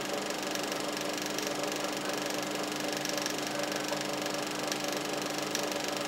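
Film projector running: a steady mechanical whirr and fine clatter over a constant low hum.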